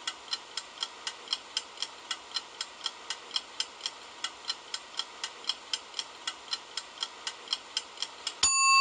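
Mechanical kitchen timer ticking steadily at about four ticks a second, then ringing its bell once near the end, a clear ding that rings on.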